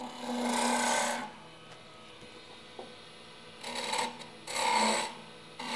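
Spindle gouge cutting a spinning chair-leg blank on a wood lathe, shaving the wood in four separate cuts: a longer one of about a second at the start, then three shorter ones in quick succession near the end. A faint steady hum runs underneath.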